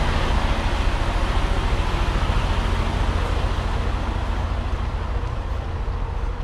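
Semi-truck's diesel engine running at idle, a steady low rumble that grows a little fainter near the end.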